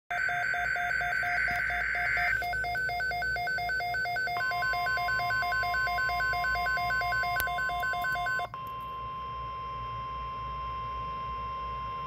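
NOAA Weather Radio alert on a Midland weather radio. It opens with about two seconds of the screeching digital SAME header data, over the radio's rapid two-pitch alert beeping. About four seconds in, the steady high attention tone starts and holds. The beeping stops with a click at about eight and a half seconds, leaving the steady tone alone.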